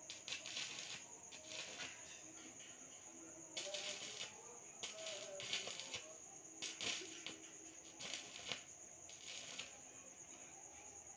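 Stick (MMA) welding arc from an RD 260 welder set to 80 amps, the electrode burning along a steel frame with an irregular crackle and sizzle that comes in louder spurts every second or two.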